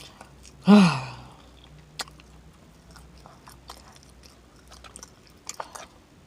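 A person chewing and smacking their lips while eating, with scattered sharp mouth clicks. About a second in comes one short, loud throaty sound that falls in pitch.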